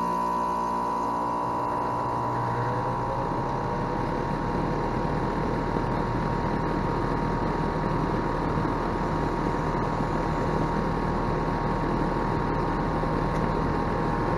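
2018 Rheem Classic 3-ton outdoor air-conditioning unit running just after startup: its Copeland scroll compressor and condenser fan make a steady sound with a clear tone near 1 kHz. A deep hum underneath grows stronger about four seconds in.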